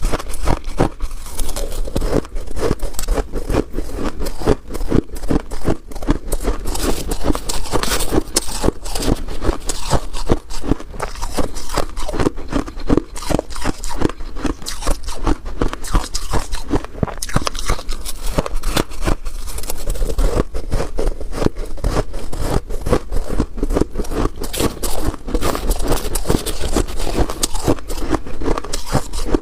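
Freezer frost being scraped and crunched, a dense, unbroken run of crackling crunches.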